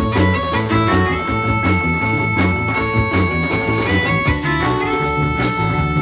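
Live blues-rock band playing an instrumental passage: electric guitars over a drum kit and hand drum, with a high lead melody held on long notes.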